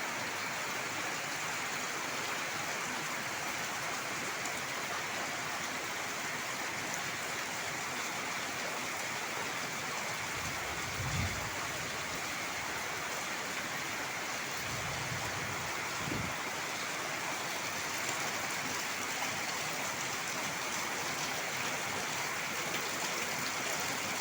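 Steady rain falling, an even hiss with no let-up. There are two brief low rumbles near the middle.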